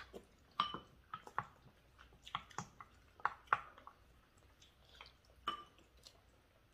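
Eating sounds at a family table: about a dozen irregular clicks and taps of spoons and chopsticks against bowls and a pan, some with a short ring, along with chewing.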